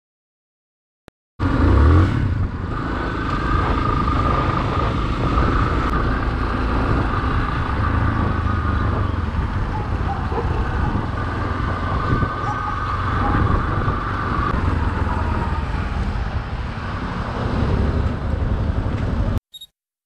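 Yamaha XTZ 250 single-cylinder motorcycle being ridden, its engine running under way with wind rushing over the helmet camera's microphone. The sound starts abruptly about a second and a half in and cuts off just before the end.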